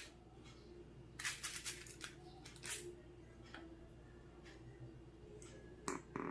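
Brief rustles and scrapes of soft biscuit dough being pinched and reshaped on parchment paper, a few short bursts over a faint steady hum.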